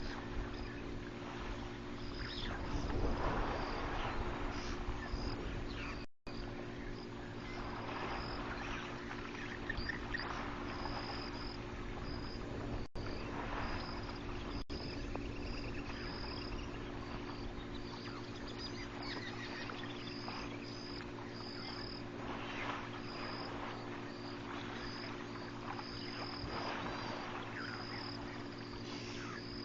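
Insects chirping: a short high chirp repeating about once a second, over a steady low hum and a few swells of rushing noise.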